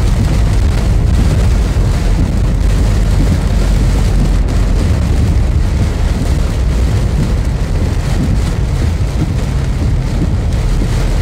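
Steady rain drumming on a car's windscreen and body over a low rumble of road and engine noise, heard from inside the cabin of a car driving through a thunderstorm.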